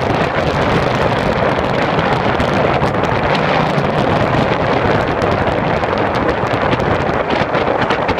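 Wind rushing over the microphone while moving at speed, a loud steady rush that turns choppier and buffets in the second half.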